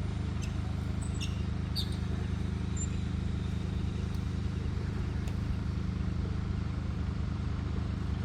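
Steady low engine drone, with a few faint high chirps and clicks about one to two seconds in.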